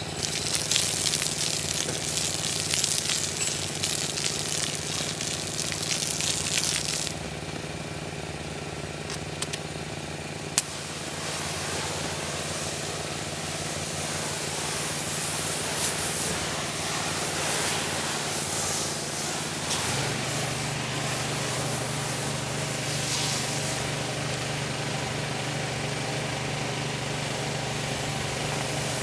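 A pressure washer's engine runs steadily while its high-pressure spray hisses on the driveway concrete. The spray cuts out about 7 seconds in and comes back after a sharp click a few seconds later. The engine note drops slightly about two-thirds of the way through.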